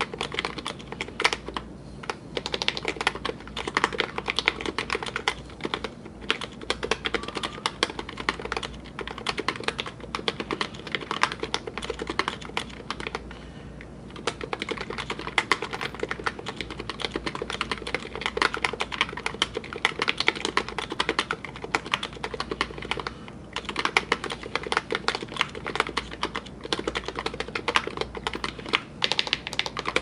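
Fast, continuous typing on an HHKB Pro 3 fitted with Cerakey ceramic keycaps, running on its Topre-style domes and coil springs: a steady stream of key clacks. There are two brief pauses, one near the middle and one about three-quarters of the way through.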